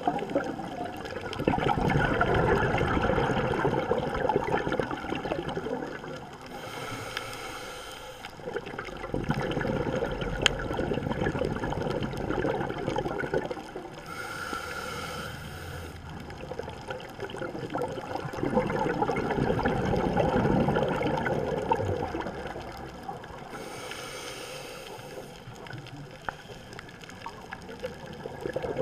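Scuba diver breathing through a regulator underwater, three slow breaths: each a brief hiss of inhaling, then several seconds of exhaled bubbles rushing out.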